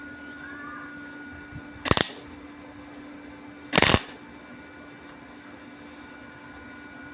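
Two short bursts of arc welding, about two seconds apart: tack welds joining the stainless steel frame to the engine. A steady electrical hum runs underneath.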